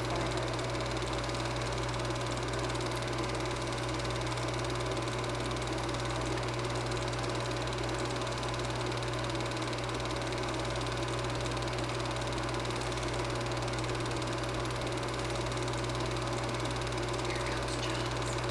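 Super 8 film projector running steadily, giving a constant mechanical whir and hum.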